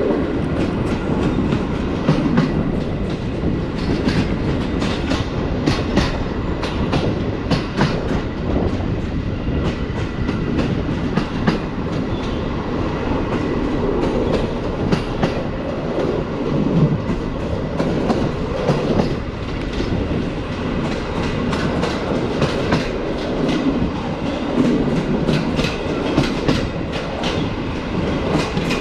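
Passenger train coach running along jointed track, its wheels knocking and clacking over the rail joints in many quick clicks above a steady rumble.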